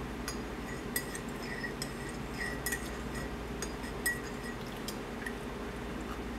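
A metal spoon clinking against the inside of a ceramic coffee mug as coffee is stirred, light ringing clinks about two a second that stop shortly before the end.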